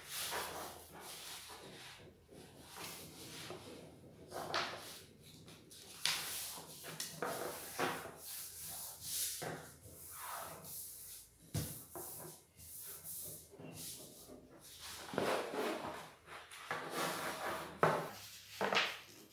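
A large sheet of yellow paper being folded and creased by hand: irregular rustling and sliding swishes as the hands move across it, with a few louder swishes.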